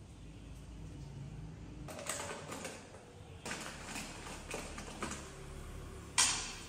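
Kitchen clatter: irregular scraping and knocks of a utensil against a frying pan, the loudest a sharp clack with a brief ring about six seconds in.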